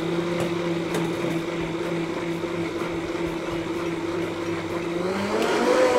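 Vitamix blender motor running steadily, puréeing a mushroom, onion and milk soup until smooth. About five seconds in, the pitch rises as the blender is turned up to a higher speed.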